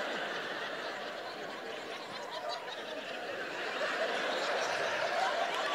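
Audience laughing, growing a little louder toward the end.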